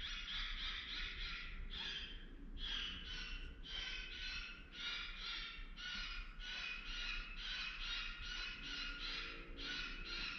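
Electronic predator caller playing a distress call: short high-pitched cries repeated about twice a second, on and on without a pause.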